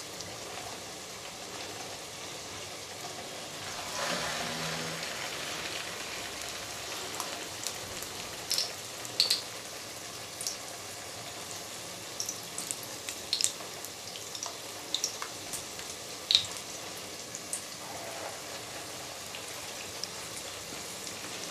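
Egg-dipped chicken and potato kababs sizzling in shallow oil in a frying pan: a steady hiss, swelling for a moment about four seconds in, with scattered sharp pops and crackles through the middle.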